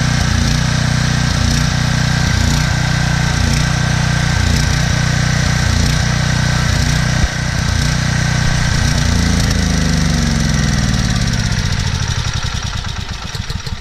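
A Troy-Bilt 8000-watt generator's 15 hp Briggs & Stratton engine runs steadily with its fuel shut off, burning the carburetor dry. A click comes about halfway, and from about nine seconds in the engine slows with falling pitch, dying near the end as it runs out of fuel.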